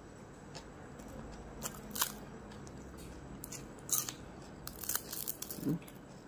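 Dried fish being torn apart by hand, giving sharp dry crackles and snaps: one about two seconds in, another at about four seconds, and a quick cluster around five seconds.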